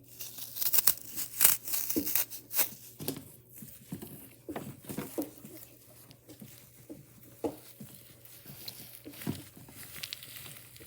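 Slime being squeezed and stretched by hand: irregular sticky clicks and small pops. They come thickly for the first few seconds, then more sparsely.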